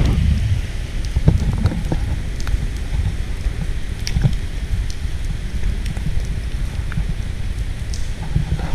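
Wind buffeting the camera microphone: a steady low rumble, with scattered light clicks and knocks.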